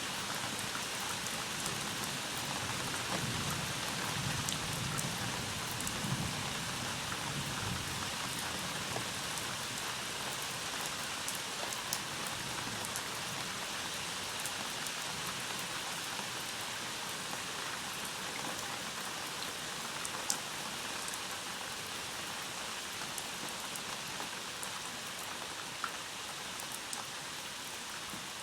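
Steady rain falling on surfaces during a thunderstorm, with a low thunder rumble fading away over the first several seconds and a few sharp drop ticks.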